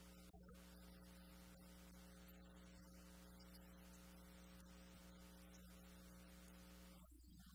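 Near silence: a faint steady electrical hum under light hiss.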